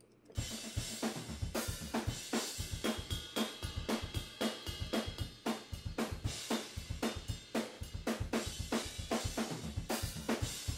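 Raw multi-track recording of an acoustic drum kit playing a steady pop-punk beat, with kick, snare and a ringing ride cymbal over the hits.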